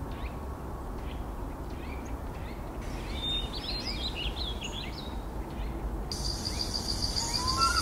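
Forest ambience: a steady low background rumble with scattered short high bird chirps in the middle, then from about six seconds a steady high pulsing trill, and near the end a few repeated lower bird calls.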